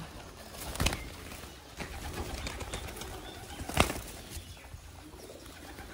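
Feral pigeons flapping their wings, with two sharper wing claps, about a second in and again nearly four seconds in.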